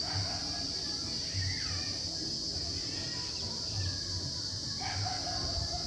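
Dogs barking in the distance, a couple of short barks about a second and a half in and again near the end, over a steady high-pitched drone.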